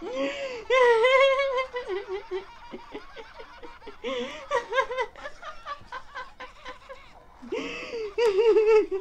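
Cartoon characters laughing in high-pitched voices in three bouts, played through a TV's speaker.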